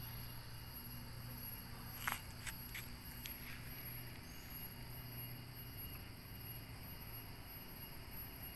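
Faint outdoor background with a steady low hum and a few thin steady high tones. About two seconds in there are four short, sharp clicks in quick succession.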